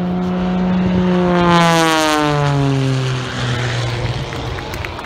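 Single-engine propeller aircraft passing low overhead, its engine and propeller drone dropping in pitch about two seconds in as it goes by, then fading away.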